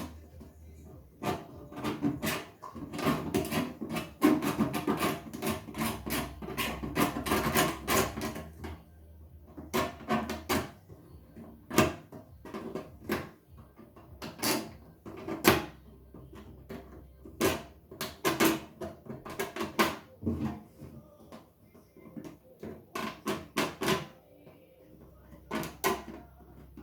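Plastic freezer drawer being scratched and scraped with a utility knife to roughen the surface along a crack before gluing. The strokes come quickly for the first several seconds, then more sparsely with pauses.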